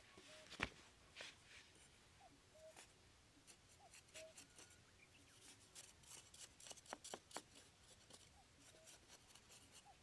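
Faint scraping and scratching of a small knife blade and hands working sandy soil while a pit is dug out. It comes as short irregular scrapes and ticks, with a sharper click about half a second in and a few quick strikes around the seventh second.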